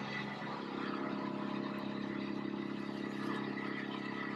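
Woodland Mills WC88 wood chipper running at a steady speed, a constant mechanical hum with no load changes.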